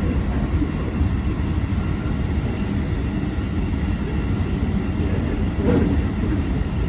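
Steady low rumble of a moving train running through a station, heard from inside a passenger carriage, with a brief louder swell near the end.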